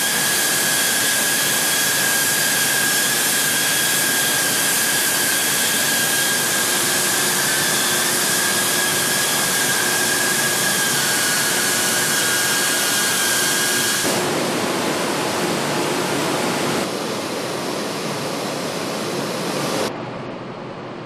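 Loud, steady rushing noise of steel-plant processing machinery, with a steady high whine over it. The noise changes character about two-thirds of the way in and drops in level near the end.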